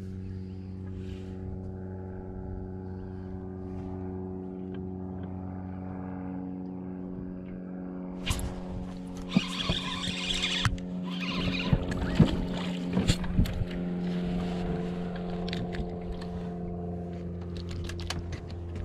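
Bow-mounted electric trolling motor running with a steady, even hum. About eight seconds in a rush of noise lasts some two seconds, followed by scattered clicks and knocks.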